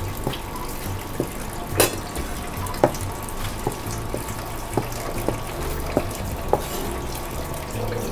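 Chinese cleaver chopping a peeled potato into bite-size chunks on a plastic cutting board: about ten unevenly spaced knocks, the loudest about two seconds in, over a steady background hiss.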